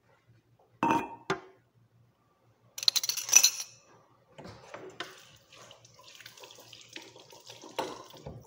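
Washing up at a kitchen sink. Two clunks of crockery about a second in are followed by a loud rush of water around three seconds. The tap then runs steadily, with another clink near the end.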